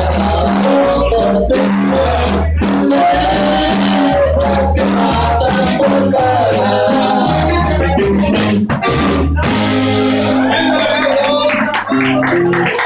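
Live band music: a man sings over guitar, alternating bass notes and percussion. The bass and percussion stop about nine and a half seconds in.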